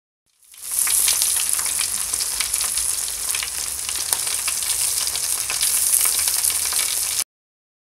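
T-bone steaks sizzling on a grill in perforated aluminium grill trays, fat spitting in a dense, steady crackle. It fades in quickly and cuts off suddenly near the end.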